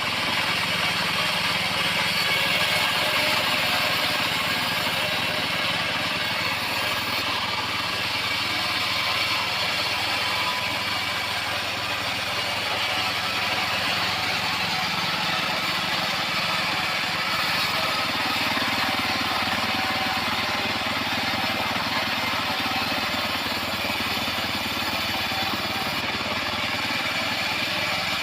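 Home-built mobile band sawmill running steadily, a continuous machine noise with no breaks.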